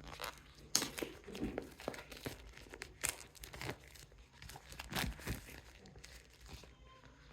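Product packaging being handled by hand: irregular crinkling and rustling of paper or plastic wrapping on a small box, with a few louder crackles.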